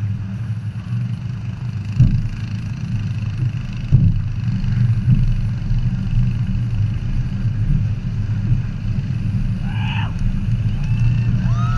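Supercharged burnout-car engine running at low revs as the car rolls, with sharp cracks about two and four seconds in.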